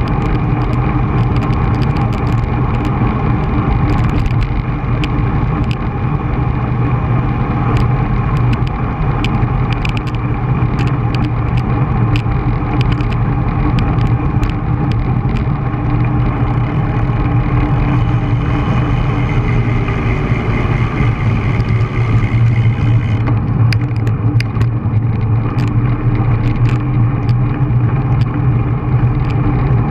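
Wind rushing over a bike-mounted camera's microphone and tyres rolling on asphalt as a road bicycle rides at speed, with frequent small clicks and rattles.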